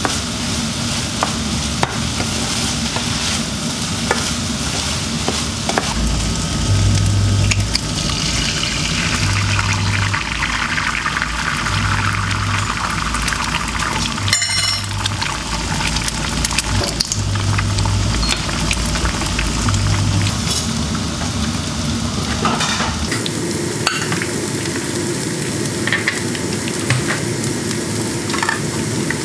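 Fried rice sizzling in a pan as it is stir-fried, the spatula scraping and clicking against the pan. About halfway through, an egg sizzles in a frying pan.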